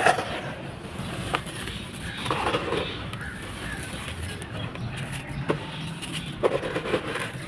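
Dry sand-cement balls being crushed and crumbling in a tub: gritty crunching with a few sharp snaps, busiest about two and a half seconds in and again near the end.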